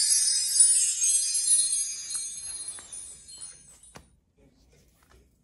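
A twinkling chime sound effect, like shaken bells or a wind-chime glissando: a bright cluster of high ringing notes that fades away over about three and a half seconds.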